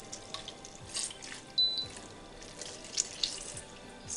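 Water dripping and splashing into a bowl in a few small irregular spurts as soaked gelatin sheets are squeezed by hand to drain them.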